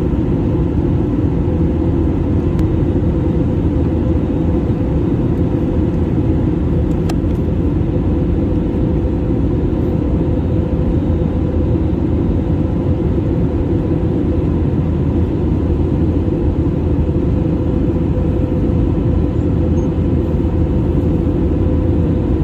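Steady cabin drone of an Airbus A320neo in flight, heard from a window seat over the wing: a deep, even rush of engine and airflow noise with a faint steady hum above it.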